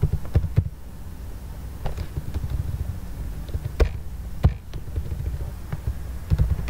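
Computer keyboard keystrokes: scattered, irregular clicks, several in quick succession at first, then single taps a second or more apart, over a steady low rumble.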